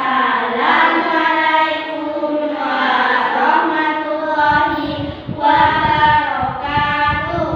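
A song sung by voices with long held notes.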